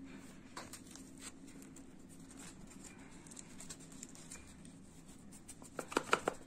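Hands handling a portable Bluetooth speaker's plastic housing and fabric grille, making scattered scratches and small clicks. A quick run of louder clicks comes near the end.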